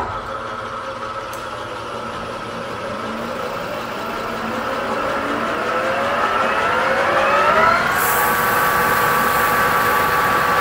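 Engine lathe switched on and spinning up: its gear whine rises in pitch for several seconds, then holds steady. About eight seconds in, an abrasive cloth belt is pressed against the spinning shaft and a sanding hiss joins the whine.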